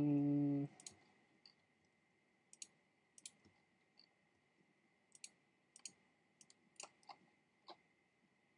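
Irregular computer mouse clicks, about fifteen sharp single clicks spread unevenly over the stretch, as stray anti-aliased pixels are removed by hand in Photoshop. A short steady hum at the very start is the loudest sound, and a faint constant high whine runs underneath.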